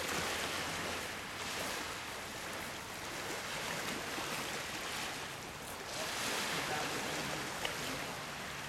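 Small waves washing onto a pebble shore, a steady rushing that swells and eases every few seconds.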